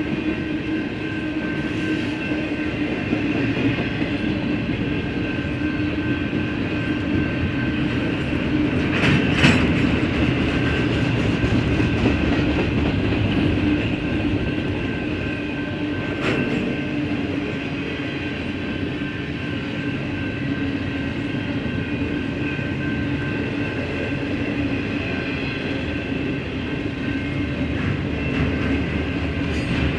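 Double-stack intermodal freight train's container well cars rolling past: a steady rumble of wheels on rail with steady high tones over it, and two sharp clanks, about nine and sixteen seconds in.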